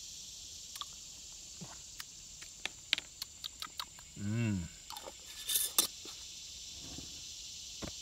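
Light clicks and clinks of a glass mason jar, its lid and a wooden spoon being handled at a table, over a steady high chorus of insects. A brief hummed voice about four seconds in, followed by a few louder clinks.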